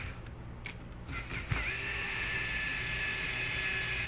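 Cordless drill driving a long screw into an undersized hole in a 3D-printed plastic box. The motor starts about a second in with a short rise in pitch, then runs with a steady whine.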